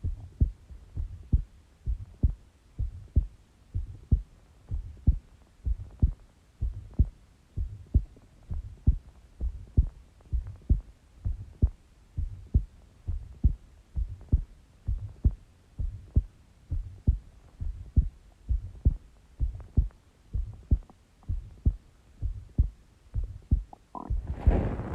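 A woman's heartbeat heard through a stethoscope: steady lub-dub pairs of low thumps, about one beat a second. Near the end, a brief louder scraping rustle covers the beats.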